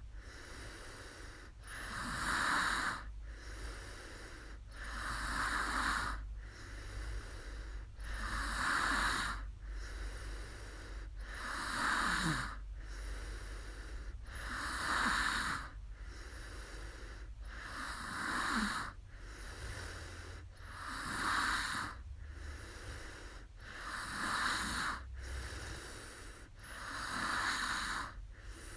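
A sleeping woman breathing heavily and snoring lightly, with a noisy breath about every three seconds, nine or ten in all.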